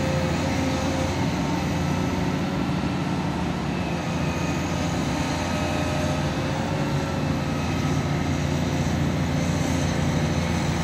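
Volvo EC210CL tracked excavator's diesel engine running steadily while the arm and bucket work, with a faint steady whine over the engine note.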